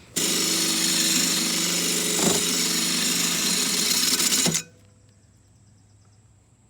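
Electric drill running with a drill-mounted knife-sharpener attachment grinding against a lawnmower blade, a loud steady whir with a gritty rasp, cutting off sharply about four and a half seconds in.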